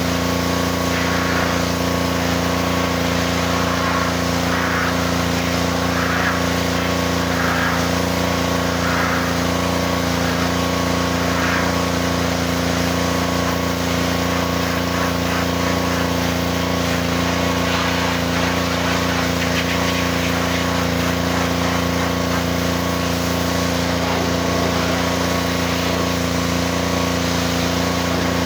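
Small gas engine of a pressure washer running at a steady speed, a constant drone.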